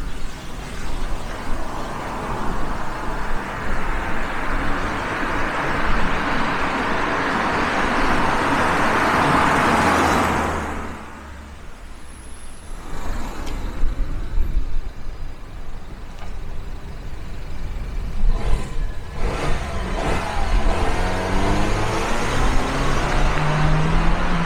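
Peugeot RCZ with its turbocharged 1.6-litre four-cylinder petrol engine. A rushing car sound builds up and cuts off sharply about ten seconds in. In the last few seconds the engine note rises in pitch as it accelerates.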